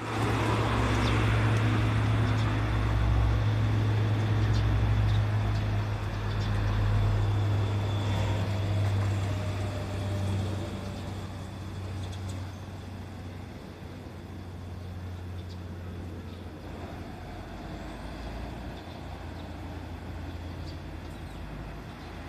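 Steady low engine hum of a road vehicle running close by, loud for about the first ten seconds, then fading to a quieter background hum.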